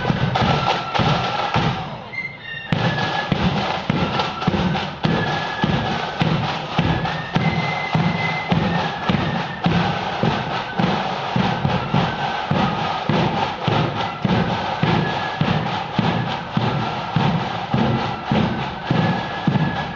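Marching band playing a tune on high held notes over a steady, driving drum beat, with a brief drop in level about two seconds in.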